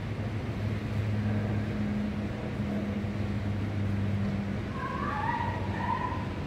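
Outdoor background noise: a steady low hum like a running engine over a traffic-like haze, with a few short, higher calls near the end.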